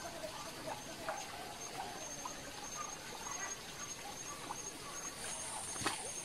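Tropical forest ambience: a high insect buzz pulsing at an even rate, with scattered short bird chirps. A second, steady high insect drone joins about five seconds in, and a single sharp click comes just before the end.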